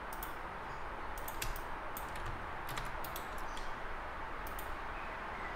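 Irregular clicks from a computer keyboard and mouse, a few a second, over a steady low background hum.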